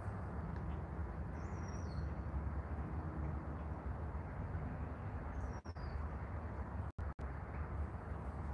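Steady low outdoor rumble with two short, downward-sliding bird calls, about a second and a half in and again near six seconds. The sound cuts out briefly a few times near seven seconds.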